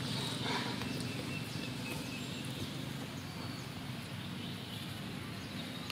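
Outdoor background noise: a steady low rumble with a few faint, thin high chirps in the first couple of seconds.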